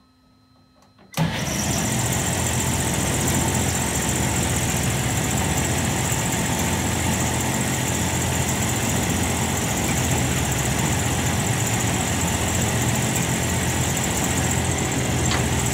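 A 1964 DoAll 1612-U vertical bandsaw is switched on about a second in. It starts abruptly and then runs steadily, with a motor hum under a broad whirring hiss from its newly welded blade.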